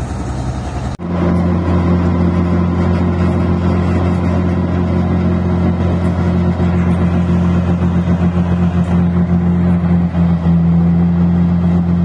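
Rice combine harvester's diesel engine running steadily as the machine drives along, a constant hum with no change in pitch; the sound changes abruptly about a second in.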